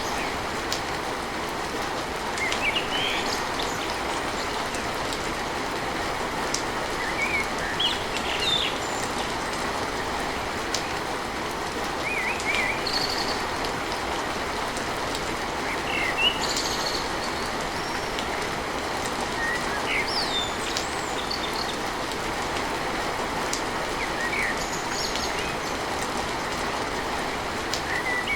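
Steady rain on a tin roof, a constant even hiss, with short bird chirps and whistles scattered through it every second or two.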